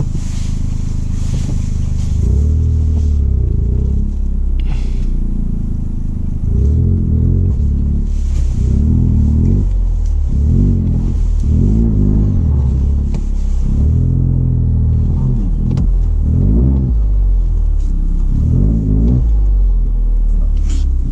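Toyota GR Corolla's turbocharged 1.6-litre three-cylinder, with an aftermarket Fi exhaust, revving up and falling back again and again, about eight swells in pitch, under a light hiss.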